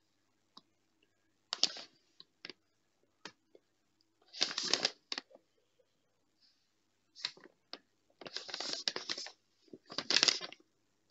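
A printed paper sheet rustling and crinkling as it is handled and bent, in about five short bursts, the longest lasting about a second, with a few light ticks between them.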